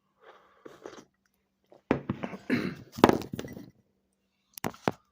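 Knocking, scraping and clattering of things being handled and set down, loudest in the middle, ending with a few sharp clicks.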